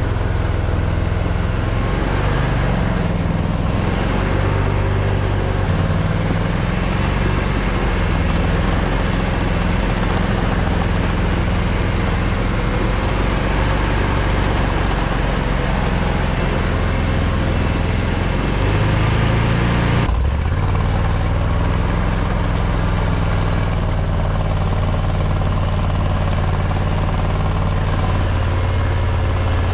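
Argo Aurora 950 Huntmaster 8x8 engine running steadily under varying load, its pitch shifting up and down as it is driven. The sound breaks briefly about two-thirds of the way through.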